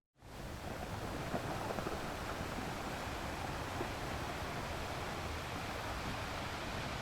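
Ocean surf: a steady, even wash of waves. It cuts out completely for a moment at the very start, then swells back in within about half a second.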